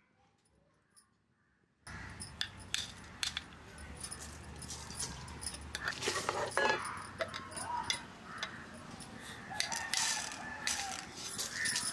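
Near silence for about two seconds, then a wooden spatula stirring and scraping whole dried chillies and spices being dry-roasted in an iron kadhai, with many scattered clicks and rattles as seeds are poured in. A rooster crows in the background.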